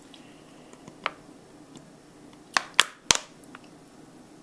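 Plastic water bottle clicking sharply as it is squeezed and released over a bowl of raw eggs to suck up a yolk: one click about a second in, then three close together a little past the middle.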